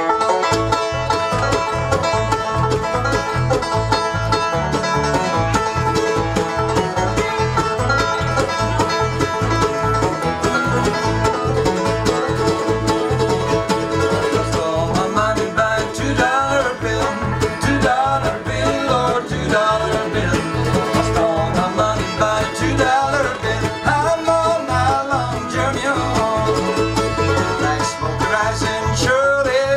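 Live bluegrass band playing: banjo, acoustic guitar, mandolin, fiddle and bass together over a steady bass pulse. A man's lead vocal comes in about halfway through.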